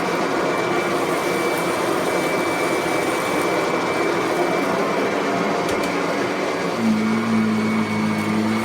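Kirby Sentria upright vacuum cleaner running steadily, a loud motor rush with a faint high whine. About seven seconds in, a lower steady hum joins in.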